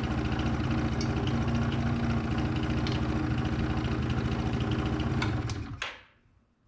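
2005 Yamaha Zuma YW50's 49cc two-stroke single-cylinder engine idling steadily, then dying out about five and a half seconds in. The owner jokes it shut off because it wanted to, or because he unplugged the ignition coil with his bungee cord.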